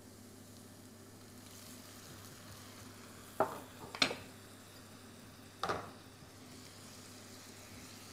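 Cornbread cubes fried in butter sizzling faintly in a frying pan as milk and string cheese are added, with three sharp knocks of utensils or containers in the middle.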